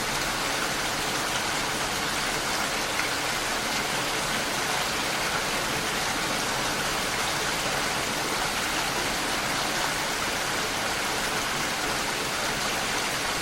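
Steady heavy rain, an even hiss with no breaks or separate drops standing out.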